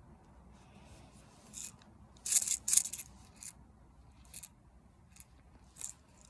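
A few short scraping, swishing handling sounds. The loudest are two close together about two and a half seconds in.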